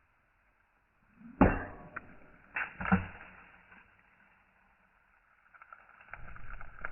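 A few sharp knocks or impacts, the loudest about a second and a half in and three more within the next second and a half, followed near the end by a low rumbling noise.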